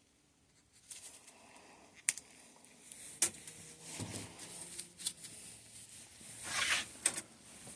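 Small bicycle suspension fork parts being handled during a teardown: several sharp clicks and knocks with rustling in between, starting about a second in.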